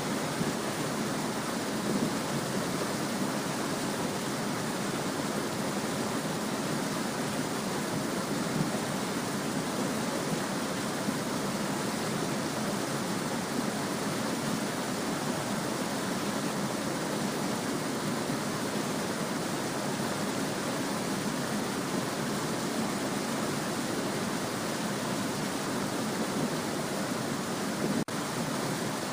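Small stream babbling and trickling over stones, a steady, even rush of running water, with a momentary dip about a second before the end.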